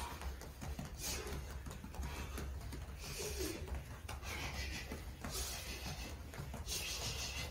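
Sharp hissing exhales about every second or two, the breath a kickboxer forces out with each punch. A steady low hum runs underneath.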